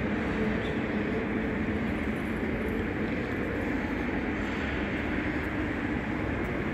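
Steady rumble of passing vehicles, even throughout with no distinct knocks or horns.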